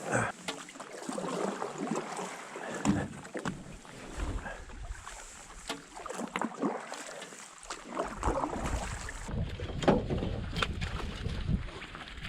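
Irregular knocks, snaps and rustling as dead branches are handled and loaded into a canoe. From about eight seconds in, wind also rumbles on the microphone.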